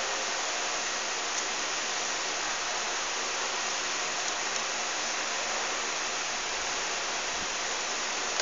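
Steady, even background hiss with no speech.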